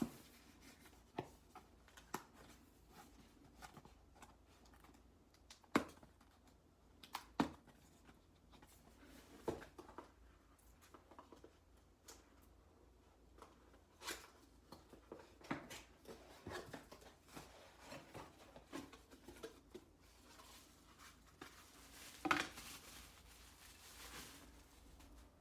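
Items and packaging being handled at close range: scattered light clicks and taps, the sharpest about six and seven seconds in, and a soft rustle near the end.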